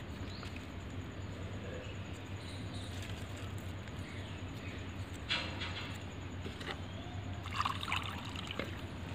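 Water poured from a small plastic mug onto the soil of a potted corn plant, trickling into the earth. A few light knocks come in the second half.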